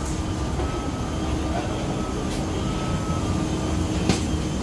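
Steady low rumble and hum of a parked airliner at the boarding door, with a short click about four seconds in.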